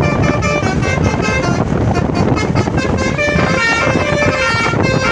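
Basuri telolet bus horn playing a fast melody of short, stepping horn notes, over a steady low rumble.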